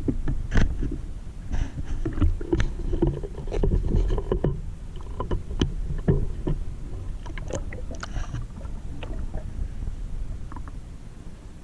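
Muffled underwater water noise, a low rumble with many scattered clicks and knocks, thinning out and fading over the last few seconds.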